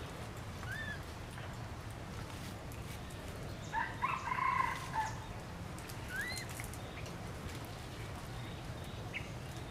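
Animal calls: a few short rising chirps, and a louder cluster of calls about four seconds in, over a steady low background hum.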